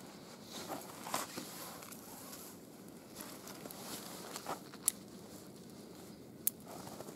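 Small wood fire burning in the cut centre of a Swedish log torch, crackling softly, with two sharp pops in the second half.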